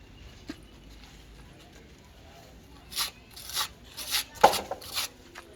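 Quick rubbing strokes of a hand tool across an interlock block wall, working joint filler into the joints. After about three seconds of quiet come about six short strokes, the loudest about four and a half seconds in.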